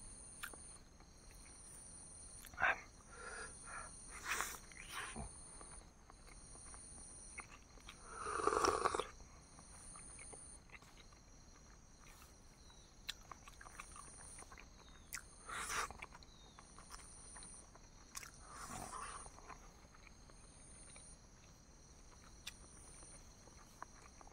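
Someone eating boiled eggs: chewing and swallowing with a few short mouth and throat sounds, the loudest about eight and a half seconds in.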